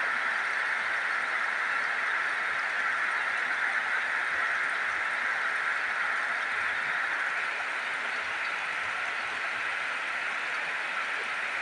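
Heavy tropical downpour: a steady, even hiss of rain.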